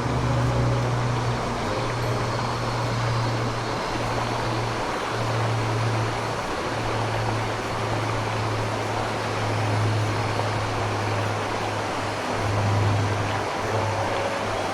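Mountain stream water rushing steadily, with a low rumble underneath that drops out briefly every few seconds.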